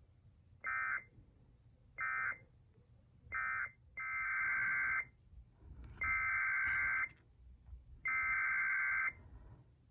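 Emergency Alert System digital data bursts: three short screeching bursts marking the end of one alert, then three longer bursts of about a second each, the coded header of the next alert.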